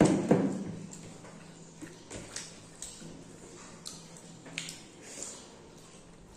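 Close-up eating sounds of rice and fish curry eaten by hand: wet chewing and lip smacks with scattered small clicks, after a loud bump right at the start.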